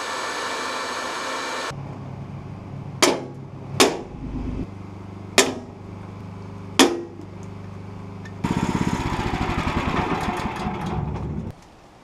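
A corded electric drill runs briefly and stops, followed by four sharp snaps of a hand pop-rivet tool as the rivet mandrels break off, each a second or more apart. The drill then runs again for about three seconds.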